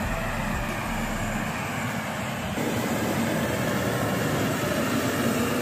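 Steady rushing and humming of aircraft on an airport apron, with the low hum growing a little louder about halfway through.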